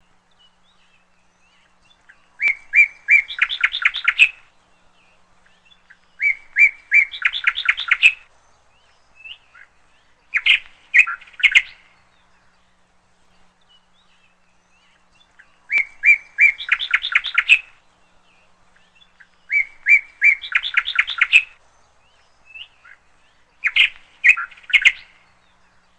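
Bird chirping in bursts of rapid notes: three bursts, then the same three again, as if one recording is repeated as a loop.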